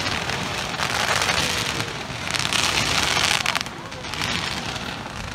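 A row of ground fountain fireworks spraying sparks with a steady rain-like hiss and crackle, swelling about halfway through and easing off near the end.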